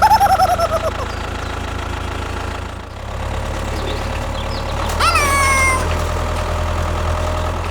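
A small motor runs with a steady low hum. Over it come two high, wavering cries: one at the start that falls away within a second, and one about five seconds in that glides down and then holds.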